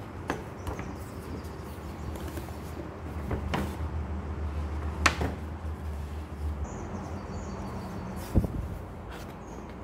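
A paper carrier bag and a cardboard box being handled: rustling and scraping, with a few sharp knocks, the loudest about five seconds in and near the end.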